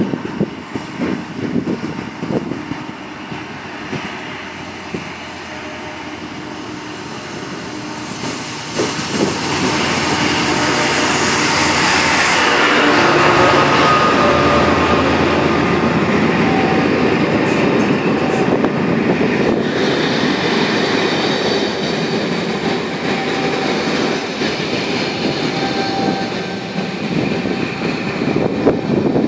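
A locomotive-hauled passenger train, ScotRail coaches pushed by a Class 68 diesel locomotive, approaches and runs in alongside the platform. The wheels rumble on the rails, growing louder for the first half and loudest as the cab end passes, then running steadily, with a couple of brief faint squeals.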